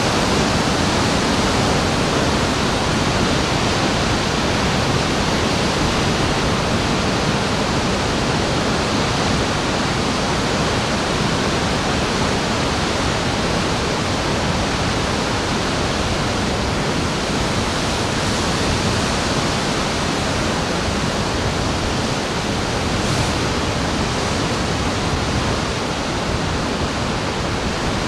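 Ocean surf as a steady, even rushing roar, with no single wave breaking out of it.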